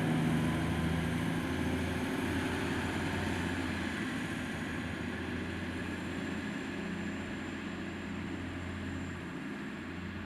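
Diesel engine of a regional train running steadily, its low hum slowly fading.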